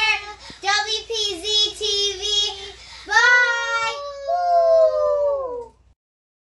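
Children's voices singing out drawn-out, high-pitched notes as a sign-off. They end on two long held notes that slide down together and break off suddenly.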